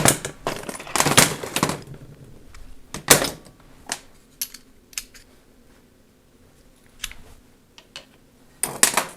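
Irregular metallic clicks and knocks of hand tools and parts being handled while an M418G inertia starter motor is taken apart: a flurry of clinks at the start and again about a second in, single taps scattered through the middle, and another quick flurry near the end.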